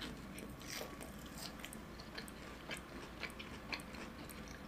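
Quiet close-miked chewing of a fried cheese ball with a purple sweet potato filling: a run of small, irregular mouth clicks as the chewy ball is worked.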